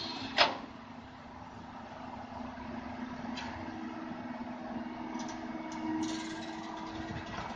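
Komatsu PC200 excavator's diesel engine running with a steady hum as the machine digs. There is one sharp knock about half a second in and a few lighter clicks later on.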